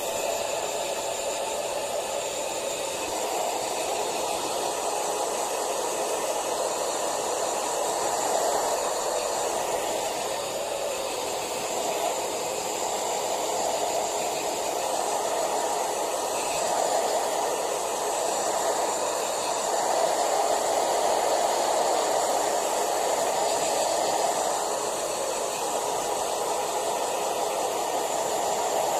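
Pet blower running steadily, drying a long-haired Persian cat's fur after its bath. A constant rush of air that swells and eases slightly.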